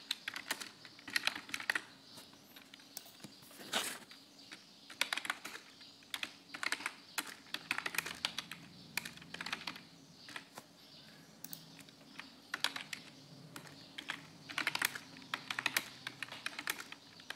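Typing on a computer keyboard: clusters of quick key clicks in short bursts, separated by brief pauses.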